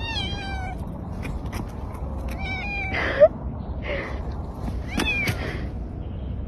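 A cat meowing three times: short calls that drop slightly in pitch, one at the start, one about two and a half seconds in and one about five seconds in. A brief sharp sound just after three seconds is the loudest moment.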